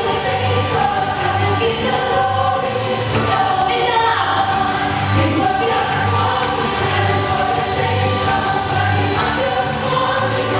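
Choir of men and women singing an upbeat worship song over a steady bass beat, with a tambourine struck on the beat about twice a second.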